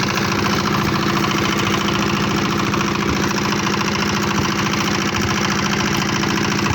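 An engine running steadily at an even speed, with a fast regular firing beat.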